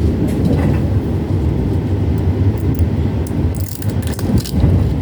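Passenger train running along the track, heard from inside the carriage: a steady low rumble with rattling, and a cluster of sharp clicks about three and a half seconds in.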